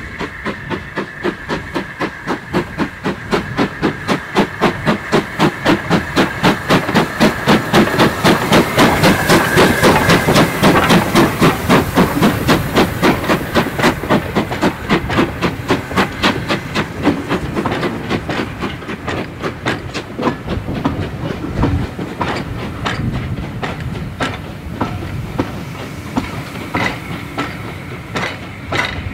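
LMS Ivatt 2MT 2-6-2 tank engine passing under steam: rapid, even exhaust beats grow louder as it approaches, peak about ten seconds in, then fade. The coaches follow, rolling by with a clickety-clack of wheels over the rail joints.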